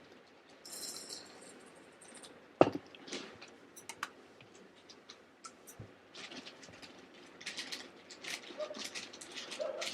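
Household handling noises in a small room: scattered light clicks and rustling, with one sharp knock about two and a half seconds in and busier crackling in the second half.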